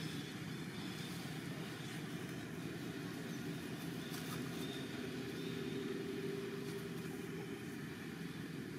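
Steady low rumble of outdoor background noise with no clear animal calls.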